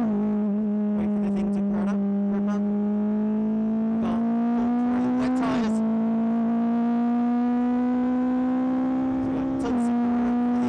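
BAC Mono R's 2.5-litre Ford Duratec four-cylinder pulling hard under acceleration, heard onboard through a distorted recording. Its pitch climbs slowly and drops sharply at two upshifts, about halfway through and near the end, with a few short crackles over the top.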